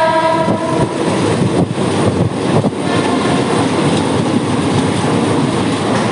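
Mumbai suburban electric local train running with a loud, steady rumble; its horn, already sounding, cuts off about a second in.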